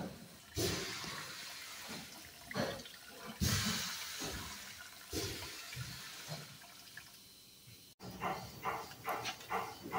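Transmission fluid pouring from the transaxle's open axle bore into a plastic drain pan, a splashing trickle that swells and eases.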